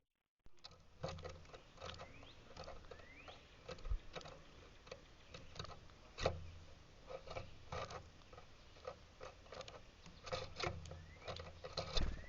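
Irregular light taps and clicks with a few short rising chirps from small birds.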